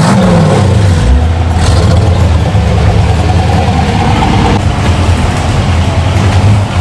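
Lifted off-road Jeep's engine revving as it drives through mud and water: the pitch rises and falls sharply at the start, then the engine runs on steadily and loud.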